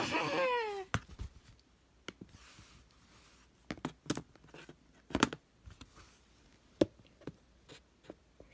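A voice wailing with a falling pitch that dies away about a second in, then scattered light clicks and taps of plastic toy figurines and fingers on a laptop keyboard.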